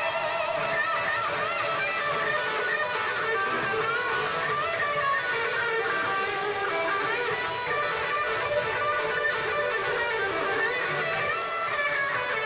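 Amplified electric guitar, a gold-top Les Paul-style, playing a live rock riff with bent, wavering notes.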